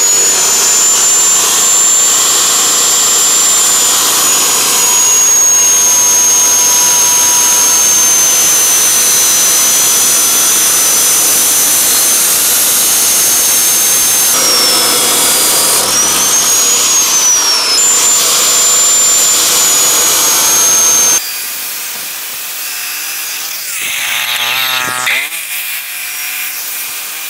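Bosch GCO 2000 abrasive cut-off saw spinning up to a high whine and grinding through red steel square tubing, its pitch dipping and wavering as the wheel bites into the metal. About 21 seconds in, the sound drops abruptly to a much quieter level.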